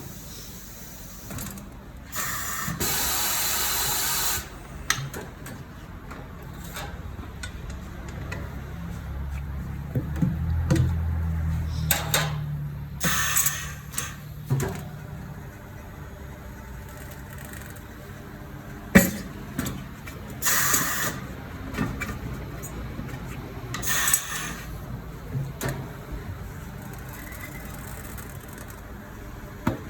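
Tyre-change work with air tools. A steady hiss of compressed air runs for about two seconds near the start, and shorter hissing bursts follow about thirteen, twenty and twenty-four seconds in. Metal tools click and knock throughout, with a low hum in the middle stretch.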